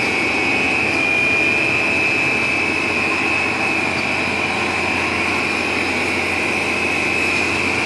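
Cast stretch film production line running, its winder turning rolls of film: steady machine noise with a constant high whine over it.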